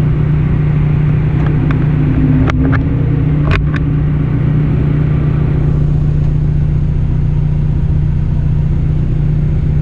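Rally car engine running at a steady drone, heard from inside the cabin, with a few short clicks or knocks about two and a half to four seconds in.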